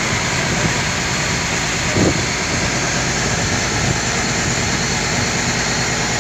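Fishing boat's engine running steadily under way, a continuous drone with water noise. Wind buffets the microphone about two seconds in.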